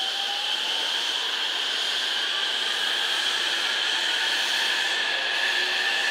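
Electric trains running: a steady hiss with high, even whining tones and a fainter whine that rises slowly in pitch.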